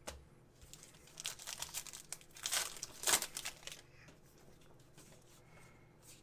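Crinkly trading card pack wrapper being handled and torn open, in a run of irregular rustles and tears from about a second in to about four seconds in.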